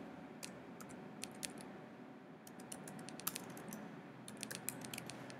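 Faint keystrokes on a computer keyboard, typed slowly: single clicks and short runs of a few keys with pauses between.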